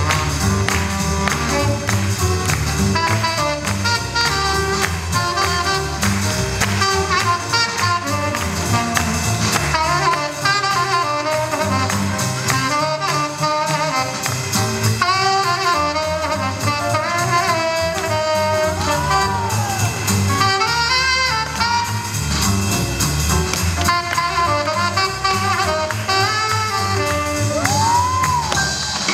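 Swing jazz music with saxophone and brass over a steady drum beat, with a couple of bent horn notes in the second half.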